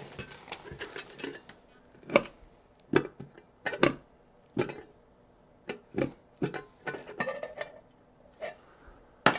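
Stainless steel canteen cup and its stainless steel lid knocking and clinking as they are handled and the lid is lifted off: about a dozen scattered sharp metal taps, irregularly spaced, some with a brief ring.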